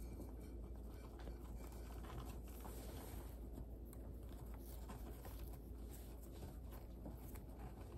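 Faint rustling and small handling clicks over a low steady hum.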